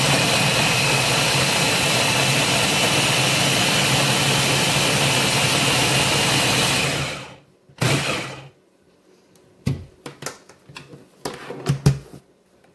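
Countertop blender with a press-down motor head puréeing kidney beans in their liquid with tomato sauce, running steadily for about seven seconds, then cutting off. A short second burst follows about a second later, then a few light plastic knocks as the motor head is lifted off.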